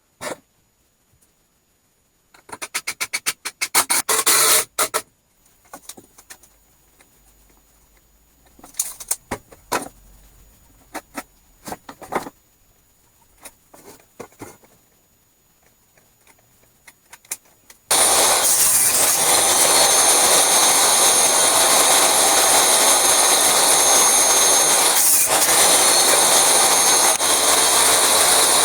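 Scattered workshop clicks and knocks, with a quick run of rapid clicks a few seconds in; then, about two-thirds of the way through, a power tool starts abruptly and runs steadily and loudly with a high whine.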